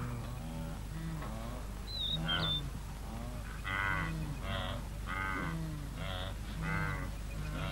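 A wildebeest herd calling: many short, low, overlapping calls repeating about every half second, louder in the second half. There is a brief high bird chirp about two seconds in.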